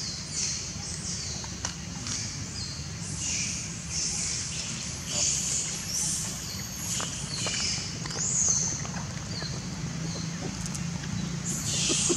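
Young macaque giving a string of short, high-pitched squealing calls, about one a second, over a steady low drone.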